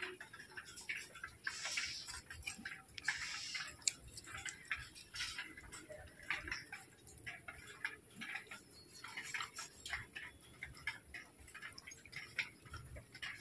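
Irregular scraping and clicking strokes of a swamp eel being cleaned by hand, its slime rubbed off with ash.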